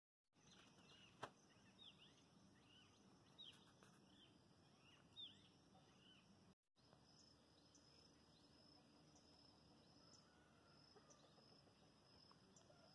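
Near silence: faint outdoor ambience with small birds chirping in the first half and a steady high insect drone.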